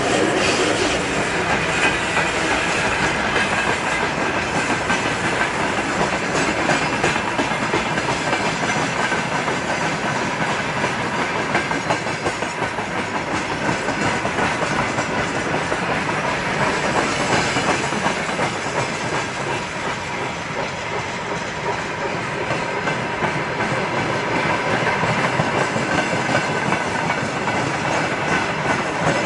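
Freight train of VL80 electric locomotives and wagons rolling past: a steady rumble with the wheels clicking over the rail joints.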